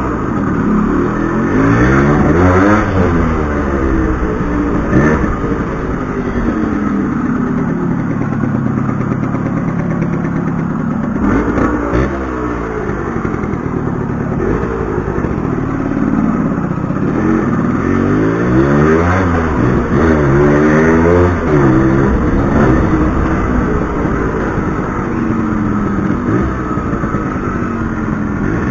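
1996 Yamaha RX100's two-stroke single-cylinder engine being ridden, the revs climbing and dropping back again and again as it accelerates and eases off.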